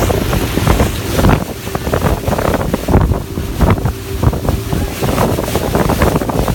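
Wind buffeting the microphone over rushing sea water, in uneven gusts, with a faint steady hum underneath.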